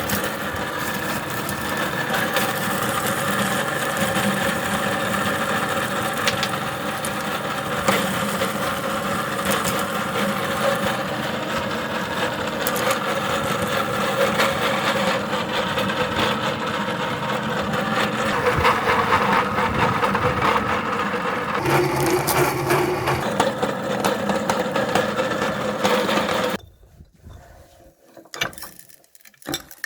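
Electric meat grinder running steadily while crushing hard lollipops, with many sharp cracking clicks of candy breaking over the motor's hum. The grinder stops about 26 seconds in, leaving a few light clicks.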